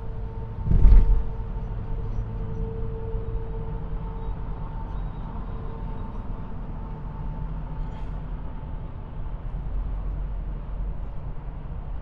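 Road noise inside a moving car on a highway: a steady low rumble of tyres and engine, with one short thump about a second in. A faint steady whine runs under it and fades out about halfway through.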